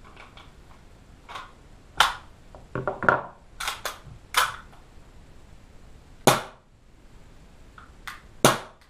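Tokyo Marui USP Compact gas blowback airsoft pistol being worked by hand without firing: a string of sharp plastic-and-metal clicks and clacks from the slide and hammer, unevenly spaced, with the loudest about two seconds apart.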